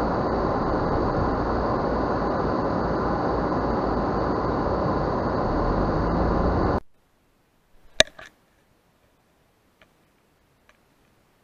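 Car driving at night, a steady rumble of road and engine noise picked up inside the car by the dashcam, cutting off abruptly about seven seconds in. Then near quiet, broken by one sharp click about eight seconds in, with a couple of fainter clicks around it and a few small ticks after.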